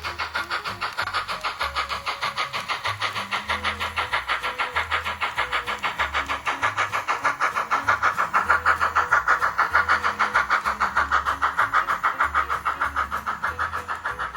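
Model train running on its track: a fast, even clicking, about six clicks a second, that grows louder toward the middle and then fades a little as the train passes close by.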